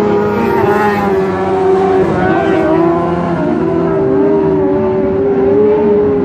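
Engines of several small open-wheel dirt-track race cars running at speed during a race, their overlapping notes rising and falling as the cars go around the track.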